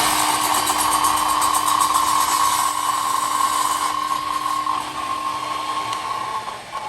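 Electric saw running and cutting a wooden board to length. It starts suddenly with a steady motor whine and eases off near the end.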